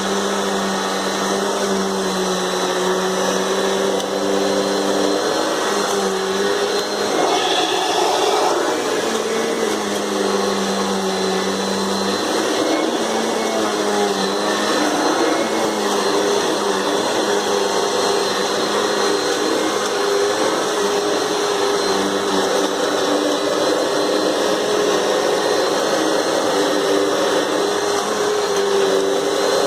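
Vacuum cleaner running continuously, a steady motor whine whose pitch wavers slightly as it works.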